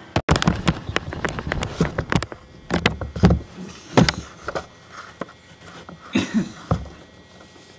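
Irregular knocks, taps and bumps of objects being handled and moved about, loudest about three and four seconds in.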